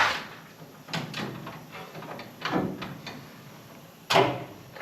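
Sheet-metal repair pieces knocking and scraping as they are forced into a fit: about four clunks with short scrapes, a second or more apart. The loudest come at the start and about four seconds in.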